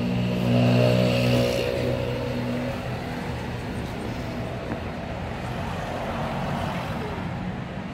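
A low, steady motor drone that swells about a second in and fades away by about three seconds in, leaving a steady background din.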